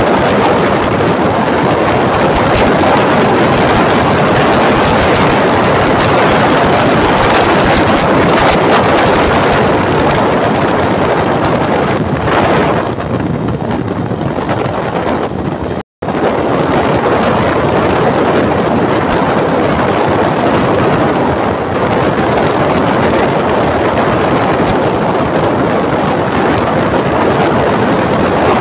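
Wind rushing over a phone microphone on a moving motorcycle, with road and engine noise mixed in. It eases for a few seconds around the middle and cuts out for an instant just after.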